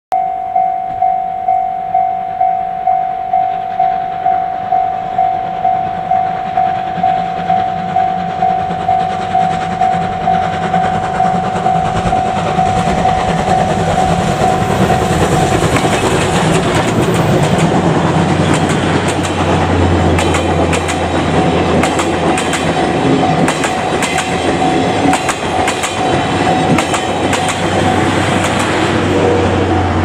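A Japanese level-crossing warning bell rings steadily at about two strokes a second. Steam locomotive C57 180 and its 12-series coaches then approach and pass close by. The train's rumble and wheel clatter over the rail joints build from about ten seconds in and become the loudest sound, drowning out the bell.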